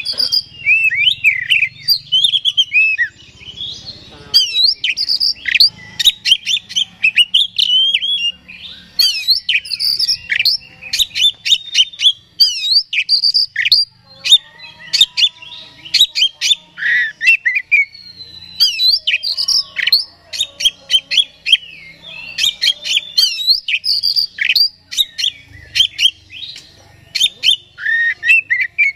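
Male Oriental magpie-robin (kacer) singing loudly and almost without a break: a fast, varied stream of whistles, slurred notes and sharp clicking notes, with a few short pauses.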